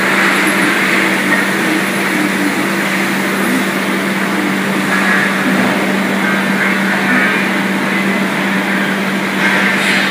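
Steady, loud machinery noise of a running Abbey Etna 4-inch tube mill line on a plant floor, with a constant low hum under it.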